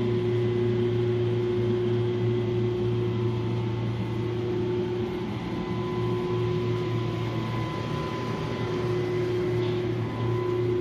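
Steady hum of shipboard machinery and ventilation: a constant drone with several fixed pitched tones over an even hiss.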